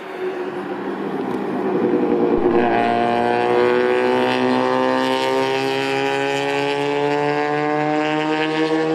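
Classic race car driving past at speed: its engine grows louder as it approaches, then from about three seconds in it holds a strong, clear note that slowly falls in pitch as the car passes and pulls away.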